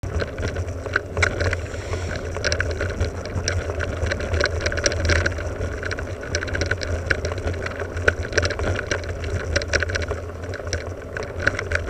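Cube AMS 120 mountain bike riding over a bumpy dirt singletrack, picked up by a camera travelling on the bike. Tyre and trail rumble runs steadily underneath, with frequent sharp rattles and clicks from the bike jolting over roots and ruts.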